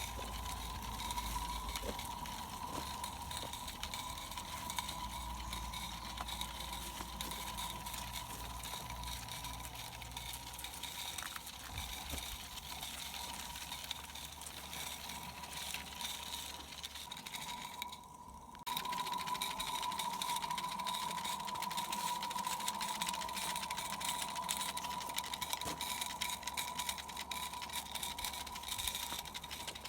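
Small 16mm-scale 3D-printed live steam locomotive running: a steady hiss with fast, rattling mechanical beats. The sound drops out briefly about eighteen seconds in, then comes back a little louder.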